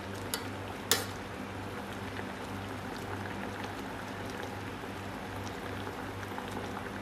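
A pot of Coca-Cola with ginger and lemon slices boiling at a steady simmer, with a sharp clink about a second in.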